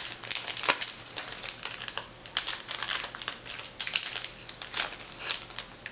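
Paper sticker strips and their packaging crinkling and rustling as they are handled: a run of small crackles that thins out near the end.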